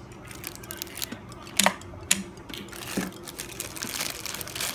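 Handling of a small plastic toy train car and its plastic packaging. A few sharp plastic clicks come about half a second apart around the middle, the first the loudest. Crinkling of a plastic bag follows near the end.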